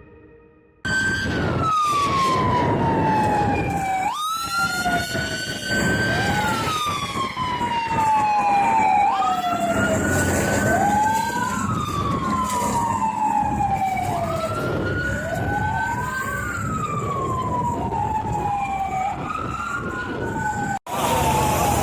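Emergency vehicle sirens wailing, two of them overlapping, each rising quickly and falling slowly about every five seconds, over a low rumble of traffic.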